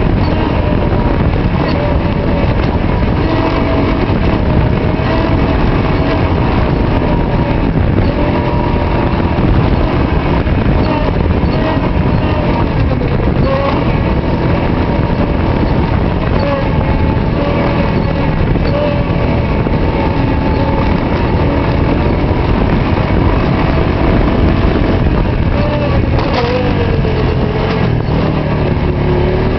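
Quad bike engine running steadily as it rides along a sandy dirt track, its pitch wavering with the throttle and dipping then rising again near the end, over a rough low rumble.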